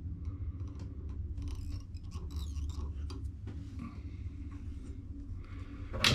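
Faint rustling and light scratching of fly-tying thread being wound from a bobbin around a jig's bucktail-style hair and feathers, over a low steady hum, with a louder sharp rasp right at the end.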